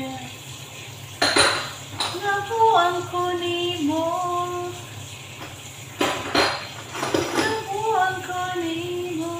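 Dishes and kitchenware clattering against a stainless steel colander as they are washed, with loud clatters about a second in and again around six to seven seconds in. Between the clatters a woman sings a tune, holding long notes.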